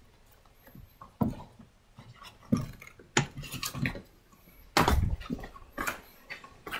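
Irregular knocks and clattering, about half a dozen sharp strikes with short rattles after them, the loudest about five seconds in.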